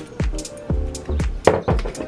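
Background music with a steady beat: a kick drum about twice a second over a bass line, with hi-hat and snare hits.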